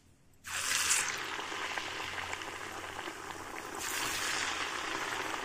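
Poha kachori deep-frying in hot oil in a kadai. The oil starts sizzling suddenly about half a second in, bubbling loudly and steadily, and grows louder again about four seconds in.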